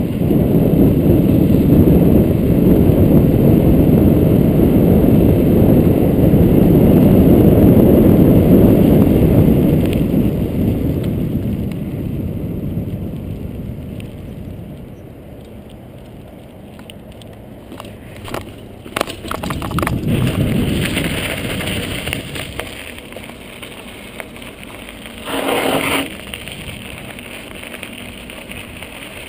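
Wind noise on a handlebar-mounted camera's microphone as a mountain bike rolls fast downhill, easing off after about ten seconds. Then quieter tyre rumble and crackle with a few sharp clicks, a short burst of noise, and knobby tyres crunching on gravel near the end.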